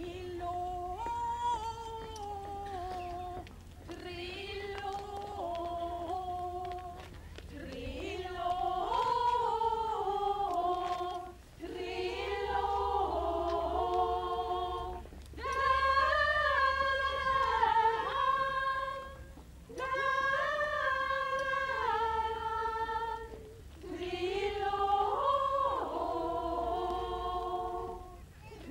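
A group of women singing together unaccompanied, in sung phrases of a few seconds separated by short breaths, growing louder after the first few phrases.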